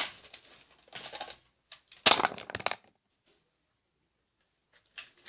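Plastic clicks and clatter from a Nerf dart blaster being fired at targets: a sharp click at the start, a loud rattling clatter of rapid clicks about two seconds in, and a few clicks near the end.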